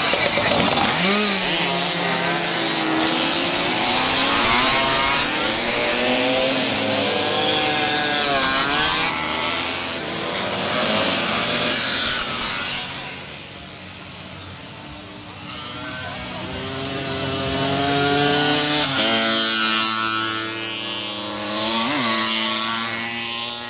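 A pack of small 50cc two-stroke Czechoslovak motorcycles and mopeds revving and racing past, several buzzing engines overlapping and rising and falling in pitch. The sound drops back about halfway through, then swells again as more bikes pass.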